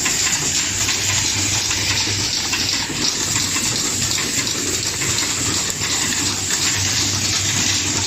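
Automatic zipper-slider assembly machine running: a steady, dense hiss with a faint low hum underneath.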